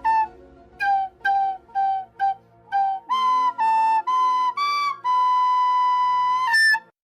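Flute-like woodwind melody: five short notes, then four longer, slightly higher ones, and a long held note of about a second and a half, ending on a brief higher note.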